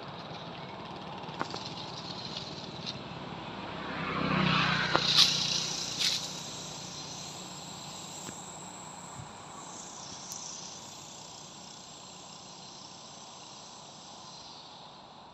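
Steady outdoor background hiss. About four seconds in, a passing engine swells and fades over two or three seconds, with a few sharp clicks at its loudest.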